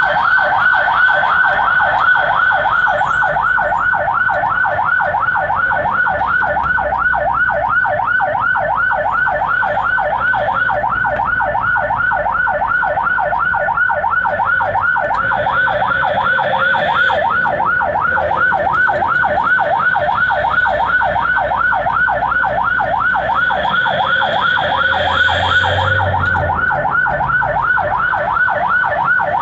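Ambulance's electronic siren on a fast yelp, rising and falling about four or five times a second without a break, heard from inside the cab.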